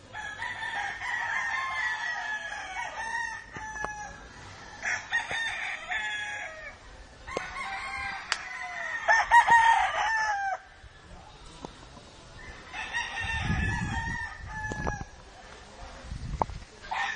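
Gamecock roosters crowing, about four long crows one after another with short gaps between them.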